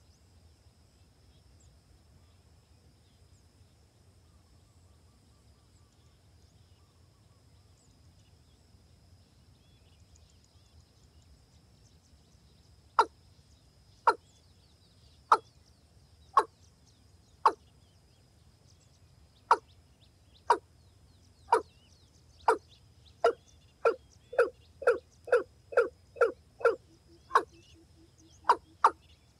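Rail (gà nước) calling: sharp, loud single notes, starting about 13 seconds in at roughly one a second, then quickening into a fast run of notes, with a short lower drawn-out note near the end. A faint steady high whine runs underneath.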